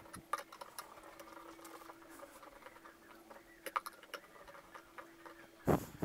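Faint handling noise of fingers twisting stripped electrical cable wires together: scattered light clicks and rustles over a faint steady hum, with a louder rustle near the end.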